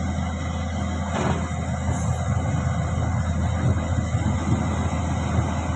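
Komatsu excavator's diesel engine running steadily, a continuous low drone.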